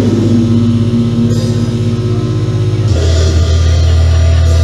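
Loud electronic drone music from synthesizers: thick, sustained low tones with fainter held tones above them. About three seconds in, the bass note shifts down to a lower pitch and a higher held tone drops out.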